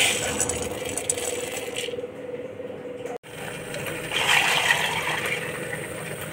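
Black chickpeas rattling and clinking in a terracotta pot, then, from about four seconds in, tap water pouring into the pot over the chickpeas with a steady splashing hiss.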